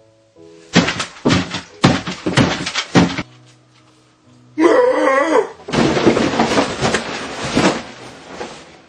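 A person imitating an animal eating, with loud chomping and gobbling noises in rapid bursts. About five seconds in there is a short, wavering voiced cry, and then the chomping resumes. Background music plays throughout.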